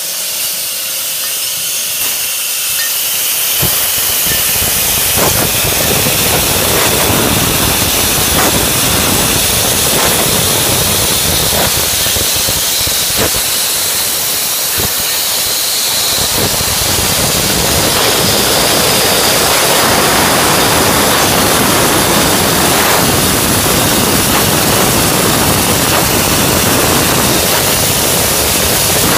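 Beer bottle filling and capping machine running: a steady, loud hiss of machinery noise with occasional faint clicks, and a lower rumble that comes and goes.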